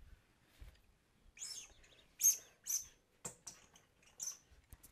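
Squeaky dog toy squeaking in several short, high-pitched squeaks as a chihuahua puppy bites it, with a couple of sharp clicks in between.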